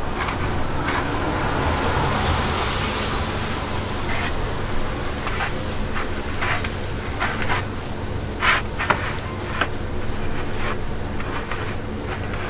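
Steady low rumble of street traffic with scattered sharp clicks and knocks, two of them louder just past the middle.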